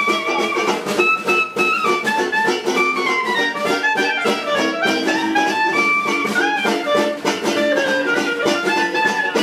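Dixieland jazz band playing live: a banjo strums a steady beat under a clarinet's running melody, with trombone and tuba filling in below.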